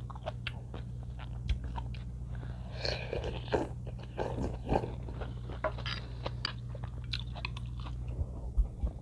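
Close-up eating sounds of a person taking spoonfuls of green-onion yukgaejang: wet chewing and crunching with small mouth clicks. A noisier slurp from the spoon comes about three seconds in. A steady low hum runs underneath.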